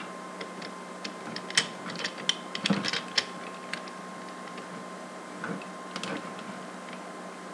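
Hard plastic parts of a Power Rangers RPM High Octane Megazord toy clicking and clacking as pieces are plugged into the holes on its arms. Clicks come in a quick cluster between about one and a half and three seconds in, with a few more around six seconds.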